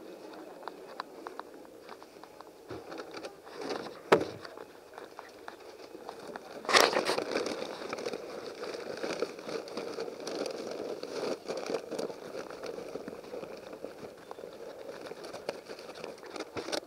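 A paper takeaway bag rustling and crinkling as it is carried close by, with a sharp click about four seconds in and a louder burst of rustling noise near the middle.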